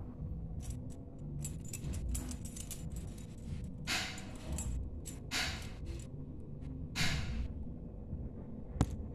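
A bunch of keys on a lanyard jangling and clinking as a kitten bats at them: light clinks at first, then three short shakes of jangling about four, five and a half and seven seconds in, and a sharp click near the end.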